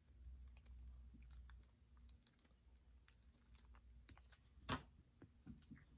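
Faint scattered clicks and taps of a fork working in a takeout bowl of lo mein, with quiet chewing; one louder click near the end.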